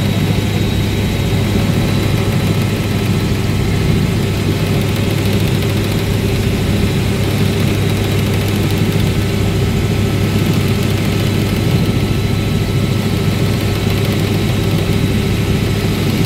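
Steady drone of a helicopter in flight, heard from inside the cabin: a strong low hum of rotor and engine with a faint steady high whine above it.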